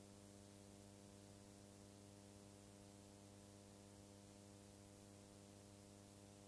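Near silence: a faint steady hum with hiss, with no sound from the scene.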